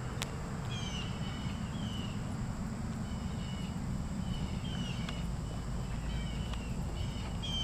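Small birds chirping over and over in short falling notes, over a steady low rumble. A sharp click comes about a quarter second in, with a few faint ticks later.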